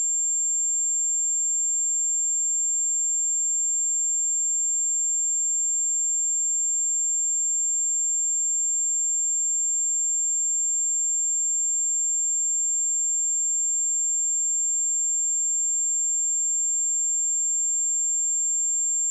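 A steady pure sine-wave test tone at 7361 Hz, a single high-pitched whistle held at constant level, used for checking speakers and headphones.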